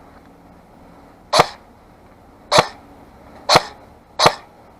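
Matrix M4 airsoft electric gun (AEG) on an 11.1 V battery firing four single semi-auto shots, each a sharp snap of the gearbox cycling, fired at uneven intervals.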